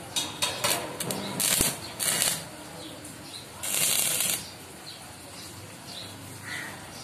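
Stick-welding arc crackling and sputtering as the electrode tack-welds the steel panel: several short bursts in the first couple of seconds, then a longer steady burst of just under a second about four seconds in.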